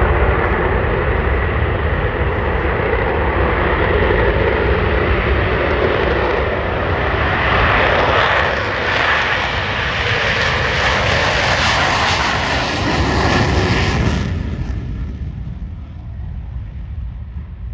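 Airplane engine noise, loud and steady, growing brighter and louder through the middle, then dropping off sharply about fourteen seconds in and fading away.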